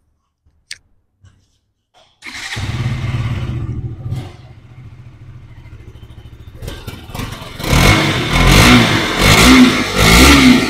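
KTM RC 200 MotoGP Edition's 199.5 cc single-cylinder engine starting after a few light clicks, running fast at first and then settling to a steady idle. In the last few seconds the throttle is blipped in several quick revs, the loudest near the end, to show off the exhaust note.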